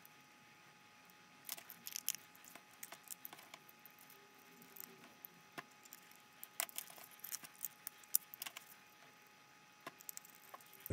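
Faint scattered clicks and small metal taps from a hex key and a screwdriver tightening M3 socket-head screws and nuts on a 3D-printed plastic robot chassis. The clicks come in loose clusters, thickest about one and a half seconds in and again past the middle.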